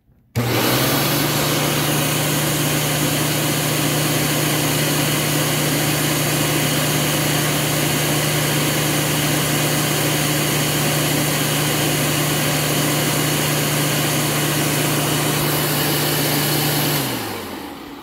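Hoover Caddy Vac U5117 900 vacuum cleaner with its 12-amp, 20-blade-fan motor on new bearings switched on, starting suddenly and running steadily at full power, drawing close to 12 amps. Near the end it is switched off and the motor spins down, its hum falling in pitch.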